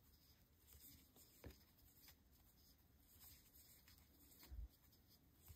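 Near silence with faint handling sounds of crocheting: a metal crochet hook working red acrylic-style yarn, giving a few light ticks, and a soft low thump about four and a half seconds in.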